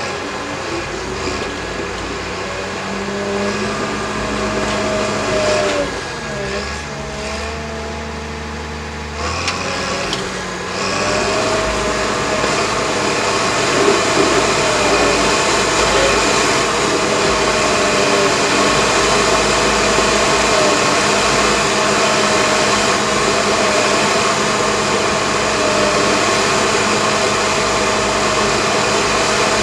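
Caterpillar D6K crawler dozer's diesel engine working under load. Its pitch dips and wavers about six to nine seconds in, then it picks up, running louder and steady for the rest.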